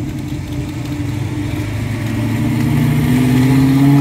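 1973 Ford Maverick's 347 stroker small-block V8 accelerating as the car pulls away, its exhaust note rising in pitch and getting louder over the last couple of seconds as it comes close.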